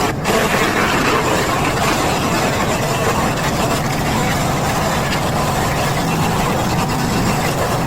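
A small petrol engine running steadily.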